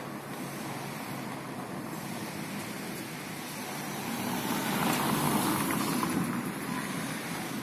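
Steady outdoor traffic noise, with a vehicle passing that rises and fades about five seconds in.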